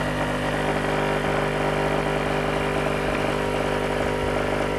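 Krups capsule coffee machine's 15-bar pump running with a steady hum as it dispenses milk from a milk capsule into the cup.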